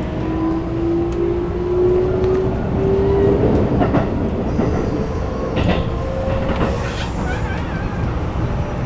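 Keikyu New 1000 series EMU with Toyo IGBT-VVVF inverter, heard from inside the car as it accelerates: the inverter and traction motor whine rises in pitch in steps over the steady running rumble of the wheels, with a few rail-joint clicks about four to six seconds in.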